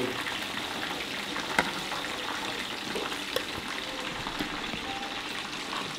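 A steady sizzling hiss of frying, with a few light clicks as a metal spatula scrapes catfish curry out of a pan onto a plate.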